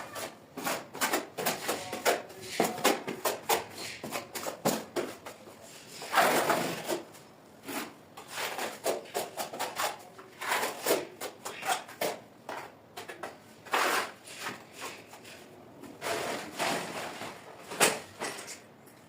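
Irregular knocks, clicks and scrapes of hand work in a small room, with a longer scrape or rustle about six seconds in and again near fourteen seconds.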